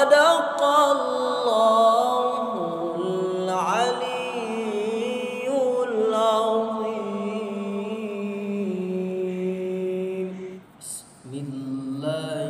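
A man's voice reciting the Quran in the melodic, sung style of a qari (tilawah), drawing out long ornamented notes that step up and down in pitch. The phrase breaks off briefly for breath about ten and a half seconds in, and a new, lower phrase begins.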